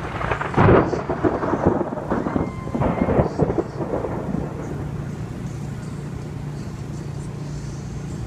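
Gusty storm wind buffeting the microphone in irregular blasts through the first four seconds or so, the strongest about a second in, then easing off. A steady low hum carries on underneath.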